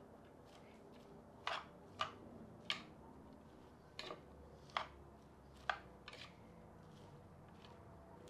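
Metal spoon clicking against a clay bowl while shredded cabbage, carrot and onion are tossed together: about seven short, separate clicks, half a second to a second apart.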